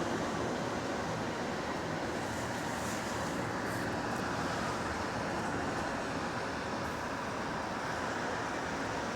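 Bus driving along, heard from inside: a steady mix of engine and road noise, with no creak standing out.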